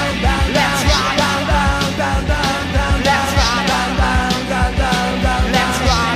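Fast early-1980s Japanese rock and roll track: drums on a driving beat under electric band instruments and a singing voice.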